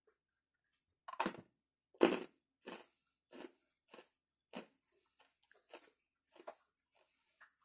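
Crunching of freeze-dried Skittles being chewed, about one sharp crunch every half second. The crunching starts about a second in, is loudest at first and grows fainter.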